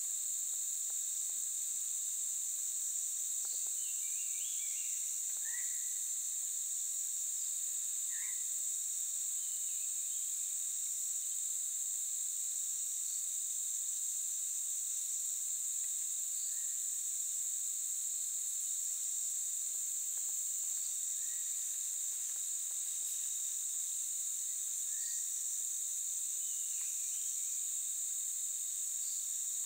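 Steady insect chorus, a continuous high-pitched shrill with an unbroken thin whine beneath it, with short scattered chirps every few seconds.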